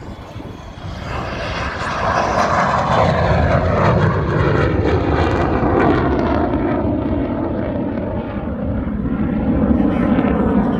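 Airplane engine noise of a low fly-by at an air show, swelling over the first two seconds and staying loud.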